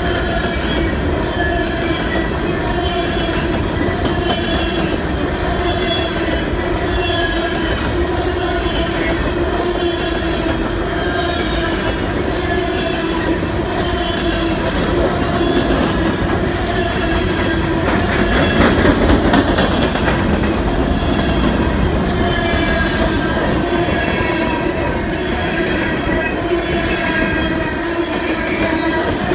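Empty coal hopper cars of a freight train rolling past close by: a steady rumble of steel wheels on rail with squealing, wavering wheel tones. It grows briefly louder about two-thirds of the way through.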